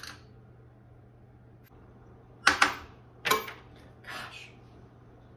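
A nickel flipped onto a hard tabletop: sharp metallic clinks as it lands and bounces, a second clink about a second later, then a short softer rattle.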